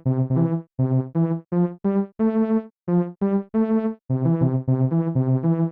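Intro music: a synthesizer or electronic keyboard playing a bouncy melody of short, separate notes with brief gaps between them.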